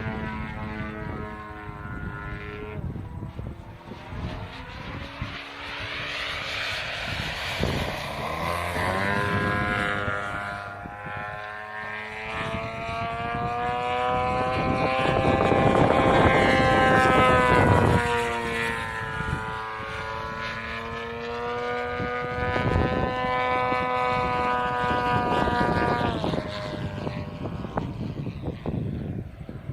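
DA70 twin-cylinder petrol engine of a large aerobatic RC plane running in flight, its pitch rising and falling with throttle changes and as the plane passes. It is loudest about halfway through and drops in pitch near the end.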